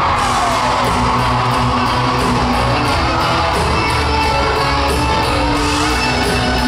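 Live band playing an instrumental passage of a country-rock song: electric guitars over bass and drums with a steady cymbal beat, and a couple of falling pitch glides in the guitar line.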